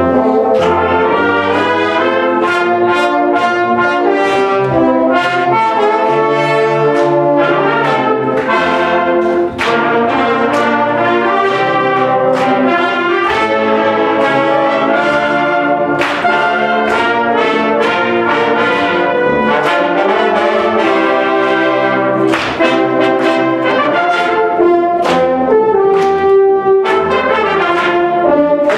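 A brass band of trumpets, trombones, baritone horns and tubas playing a piece together, loud and without a break, the notes changing in steady rhythm.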